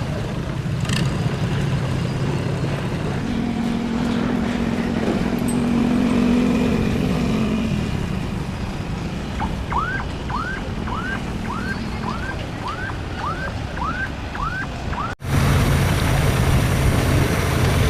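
Boat engines running with a steady low hum. About ten short rising chirps repeat roughly twice a second in the middle, and after a sudden break near the end the engine hum comes back louder.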